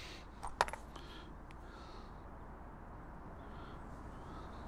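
A few light clicks and ticks as bread-bait tackle is handled, the loudest about half a second in, then a quiet outdoor background with a faint high bird chirp late on.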